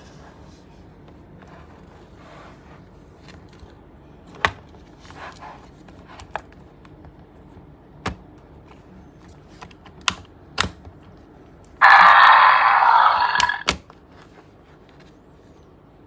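Plastic Ankylosaurus dinosaur toy being handled: several sharp plastic clicks and knocks, then a loud electronic roar from the toy's built-in sound effect lasting about two seconds, about three quarters of the way through.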